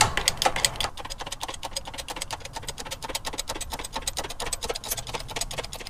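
Hydraulic bottle-jack axle press being pumped under load to press the ABS tone ring and inner retainer off a Toyota rear axle shaft: a rapid, even run of light clicks, about eight to ten a second.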